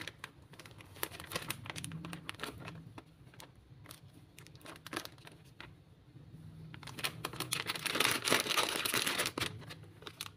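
Plastic bag of tapioca flour crinkling as it is tipped and shaken over a bowl to pour the flour out, a run of sharp crackles that gets denser and loudest about eight seconds in.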